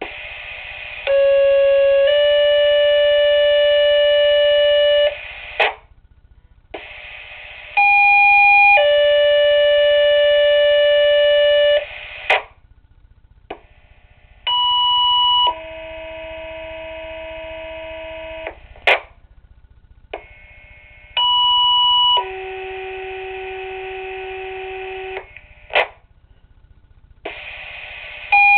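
Fire dispatch two-tone sequential paging tones coming through a Motorola Minitor II pager's speaker, one page after another for different fire companies. Four pages are heard, each a one-second tone stepping to a three-second tone at a different pitch. Each page opens with a short stretch of radio hiss and ends with a brief squelch burst.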